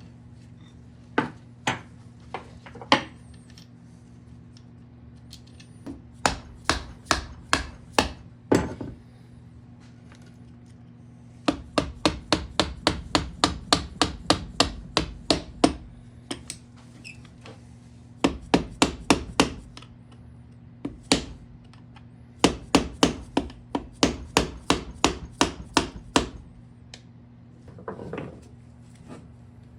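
Hammer blows in several quick runs of sharp strikes, about three a second, with short pauses between runs.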